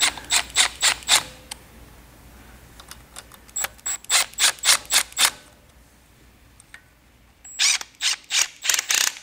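Cordless Milwaukee M12 Fuel driver running bolts into a brass pressure-washer pump head, in three bursts of sharp clicking, about four clicks a second.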